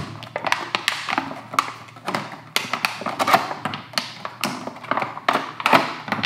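Clear plastic blister packaging being handled and pried open, crackling and clicking in quick, irregular snaps, with small plastic parts tapping on the table.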